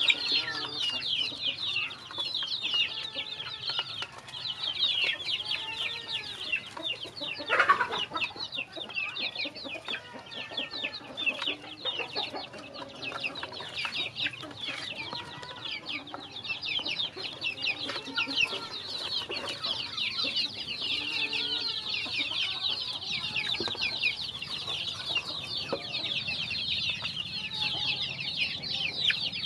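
A flock of young chickens peeping continuously in high, rapid chirps, with lower clucking calls mixed in as they feed. One louder, sharp sound stands out about a quarter of the way in.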